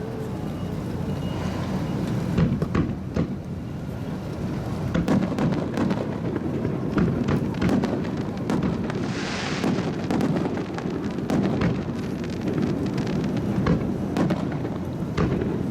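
Fireworks display going off: many sharp bangs and crackles over a continuous low rumble of bursts, with a short rushing hiss about nine seconds in.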